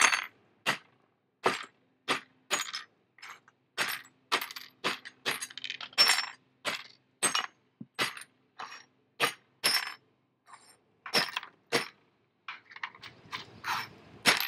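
Hammer blows breaking ceramic teacup pieces into small shards on a painted wooden board: a run of sharp cracks and clinks, somewhat under two blows a second and irregularly spaced, with a softer rustle of shards near the end.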